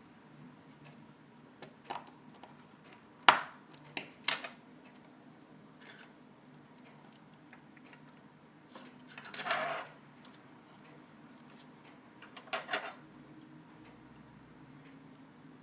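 Small hand tools such as tweezers and spudgers clicking and tapping against the parts of an iPhone 4S being reassembled: a scattering of sharp light clicks, with a brief clattering rattle near the middle, over a faint steady hum.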